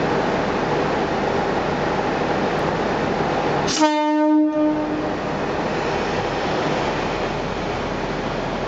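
JR East KiHa 40 series diesel railcar sounding its horn once, a short blast of about a second nearly four seconds in, over a steady background rumble. The one-man train gives this horn as its departure signal.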